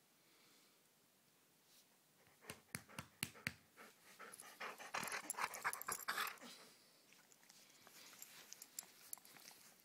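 Dog panting and huffing during rough play. A quick run of sharp clicks comes about two and a half seconds in, and the panting is loudest in the middle.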